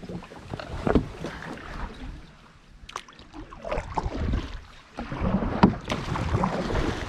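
Kayak paddle strokes splashing and dripping in the water, with wind on the microphone; quieter for a couple of seconds in the middle, then busier again.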